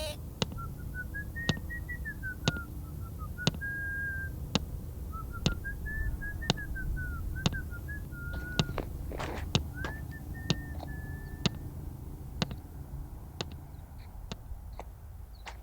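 A person whistling a slow, wandering tune over sharp ticks about once a second and a low rumble. The whistling stops about three quarters of the way through while the ticks go on.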